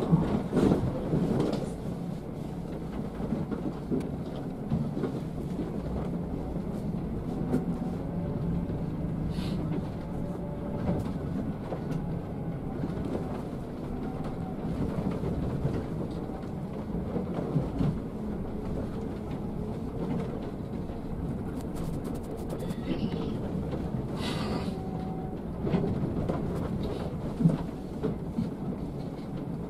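Inside a Scania K360 coach moving slowly over a broken, potholed road: the diesel engine runs low and steady under a constant rumble and rattle from the body and fittings, with a few sharper knocks as the wheels drop into holes.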